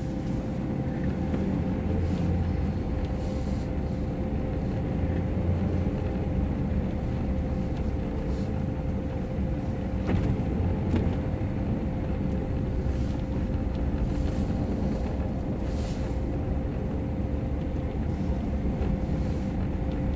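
Pickup truck driving on a snow-covered road, heard from inside the cab: a steady low rumble of engine and tyres with a constant hum, and a few faint clicks and knocks.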